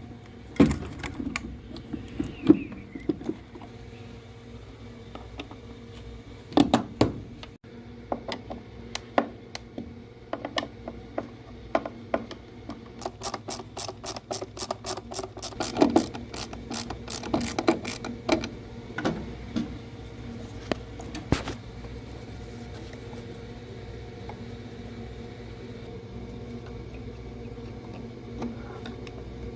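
Hand tools at work while the inducer motor is fitted on a gas furnace: a ratchet clicking in a fast run about halfway through, among scattered knocks and clatters of parts being handled, over a steady low hum.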